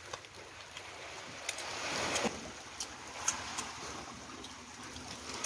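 Sea waves washing over a rocky, pebbly shore, swelling about two seconds in and fading again, with scattered sharp clicks.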